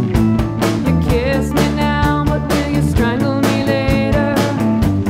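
Rock band playing live: a woman's singing voice comes in about a second in, over keyboard, steady drum beats and low bass notes.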